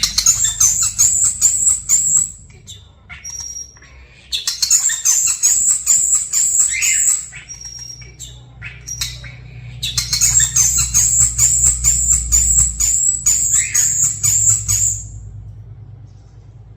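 European starling singing in three long bursts of fast chattering, clicking notes topped by high, pulsing whistles, with short pauses between the bursts.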